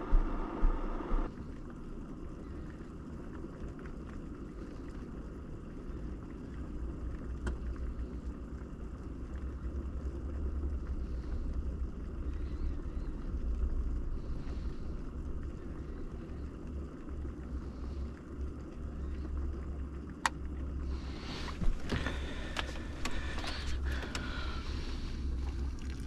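Steady low rumble of a truck, with a run of clicks and clatter near the end.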